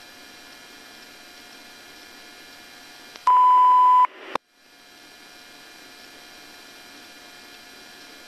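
Steady hiss and hum of a radio channel between transmissions. About three seconds in, a single loud steady-pitched electronic beep sounds for under a second, then a click and a brief cut-out before the hiss returns.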